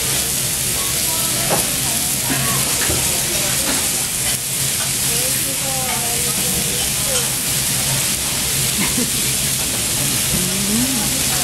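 Kobe beef steak sizzling steadily on a hot teppanyaki griddle, fat spitting in the pan juices.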